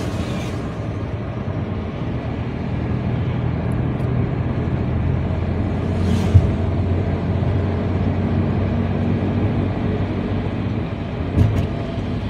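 Car driving: a steady engine and road hum, with a short knock about six seconds in and another near the end.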